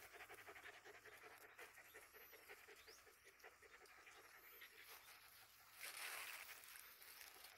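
A mother dog and her puppies eating off the ground: faint, quick, rapidly repeated eating and breathing sounds, with a brief louder burst of noise about six seconds in.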